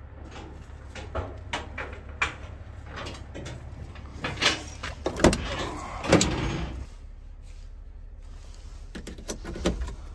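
Cab door of a John Deere 245 excavator being opened, with a string of clicks, knocks and scuffs as someone climbs up into the cab; the loudest knocks and a short scrape come about halfway through.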